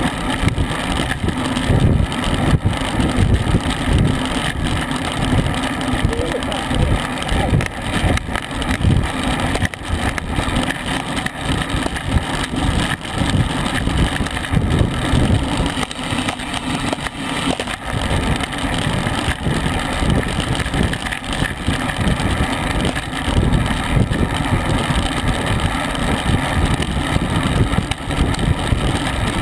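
Wind rushing and buffeting over the microphone of a camera mounted on a road bicycle racing at about 23 mph, a constant fluttering rumble.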